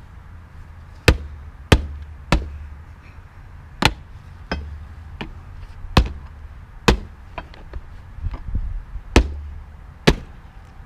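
Hammer blows on a small safe being forced open: about eight sharp strikes at uneven spacing, with lighter knocks between them.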